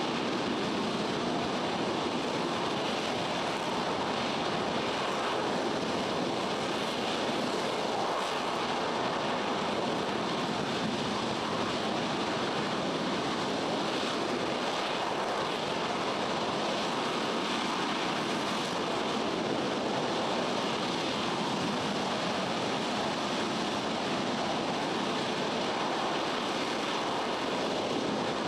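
RS-25 rocket engine firing on a test stand: a steady, even rushing noise that holds at one level with no breaks.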